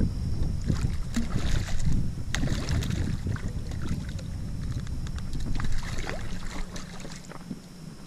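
Water splashing and slapping as a hooked redfish thrashes at the surface beside the boat and is lifted out, with low wind rumble on the microphone.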